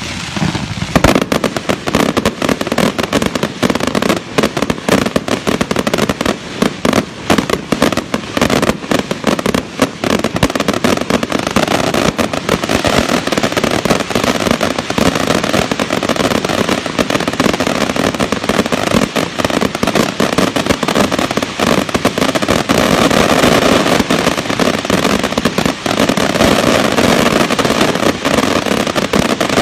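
Daytime fireworks display firing continuously: rapid cracks and bangs start about a second in and run together into a dense, steady crackle.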